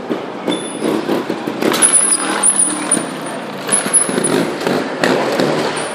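Trials motorcycle being ridden and hopped on stone steps, its engine running under sharp irregular thumps as the wheels strike and land. Brief high squeals come about two seconds in and again about four seconds in.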